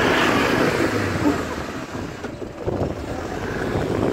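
A car's engine and road noise as a steady rush, loudest in the first second, with a sudden change about two seconds in.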